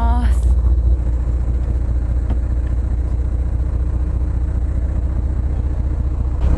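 Small boat's engine running steadily with a deep rumble as the boat pulls away from the shore, growing a little louder near the end.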